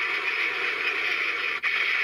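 Electronic finishing-attack sound effect from a CSM Den-O Belt toy's speaker: a steady hiss-like whoosh that breaks off for an instant about one and a half seconds in, then resumes.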